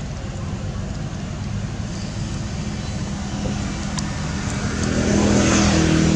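A motor vehicle's engine running with a steady low hum, growing louder near the end with a rising rush of noise, as of a vehicle coming close.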